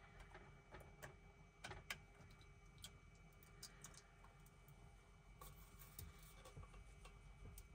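Near silence, broken by a scattering of faint clicks and light taps, the loudest about two seconds in. They come from chunky soup being tipped out of a metal can into a small cooking pot, the can knocking lightly against the pot.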